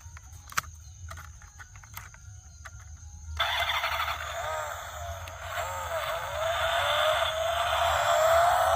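Light clicking and tapping, then a louder whirring vehicle sound that starts suddenly about three and a half seconds in, with wavering tones and one rising tone near the end, from a toy car.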